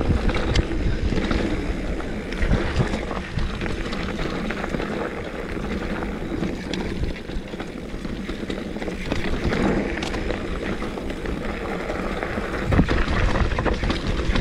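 Mountain bike rolling down a dirt singletrack: steady tyre and wind noise on the microphone, broken by frequent knocks and rattles from the bike over bumps.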